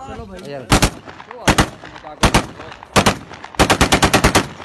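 7.62×39 mm AK-pattern assault rifle fired into the air: four short two-round bursts roughly three quarters of a second apart, then a rapid burst of about ten rounds near the end.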